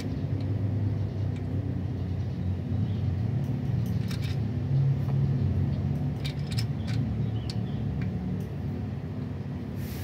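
Steady low motor-vehicle rumble, with a few light sharp clicks about four seconds in and again around six to seven seconds.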